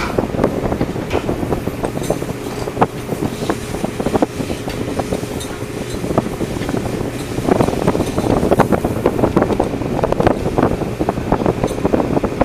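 Longline fishing vessel's deck machinery and engine running steadily, with wind on the microphone and many irregular clicks and knocks from crew working gear at the rail; the clatter gets busier about seven seconds in.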